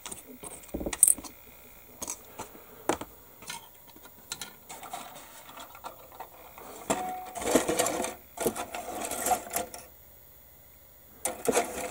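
Small plastic model-kit parts and hobby tools being handled on a cutting mat: scattered light clicks, then a longer spell of dense clicking and rattling in the second half, followed by a short lull.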